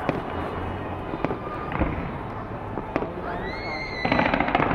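Fireworks display going off: a steady wash of bursting shells with a few sharp bangs, a rising whistle a little past three seconds, and a dense burst of crackling near the end.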